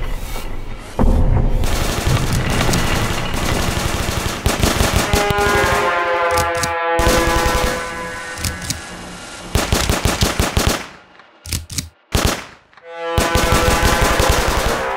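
Rapid machine-gun fire in a dramatic soundtrack, mixed over music with held tones. About eleven seconds in the firing breaks off, leaving a few single shots, then the sound swells again near the end.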